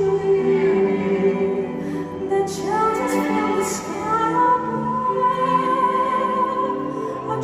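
Music with a woman singing long, held notes in an operatic style; a high note is held steadily through the second half.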